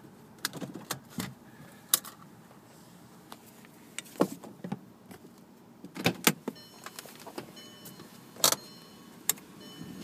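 Irregular sharp clicks and knocks, about a dozen, from the camera being handled and moved around inside a car. Faint high thin tones come and go in the second half.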